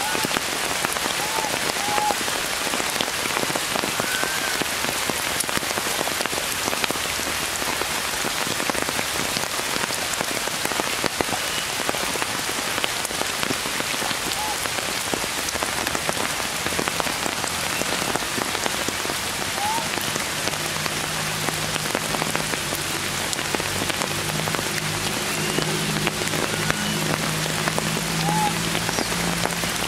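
Steady rain falling on tree foliage, a dense even patter of drops. A few short faint chirps sound here and there, and a low steady hum comes in a little past halfway.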